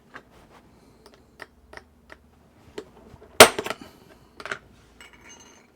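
A string of light clicks and taps of a small diecast metal car body being handled and pressed with tools to straighten a bent part. One sharper knock about three and a half seconds in, with a few quick clicks after it and another cluster near the end.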